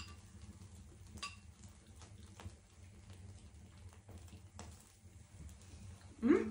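Faint clicks of metal spoons against ceramic bowls as people eat, a few light chinks with a short ring. Near the end a voice gives a short rising "hm".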